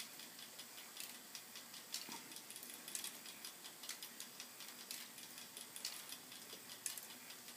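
K'Nex plastic clockwork ticking, with sharp ticks about once a second over a faint, steady clicking and rattling of plastic gears.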